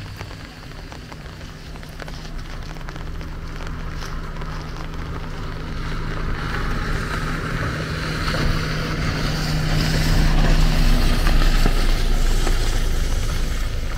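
A motor vehicle's engine humming steadily and drawing closer, louder and louder until about three quarters of the way through, then easing slightly, over a rising hiss.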